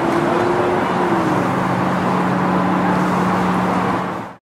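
Steady mechanical rumble with a low hum that shifts down in pitch about a second in, fading out quickly near the end.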